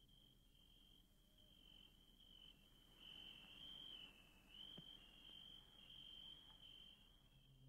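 Cricket chirping in a faint, high, steady trill.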